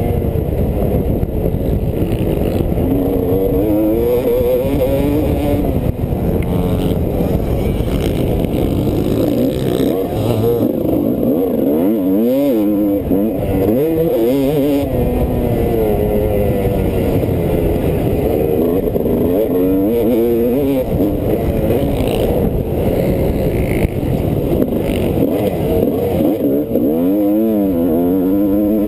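Motocross bike engine at race pace, its pitch climbing and dropping again and again as the rider works the throttle and shifts gears through the corners and straights.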